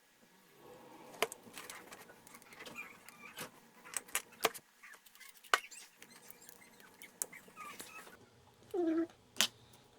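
Scattered light clicks and taps of handling the iPad and its charging cable on the bench. Near the end there is one short pitched vocal sound.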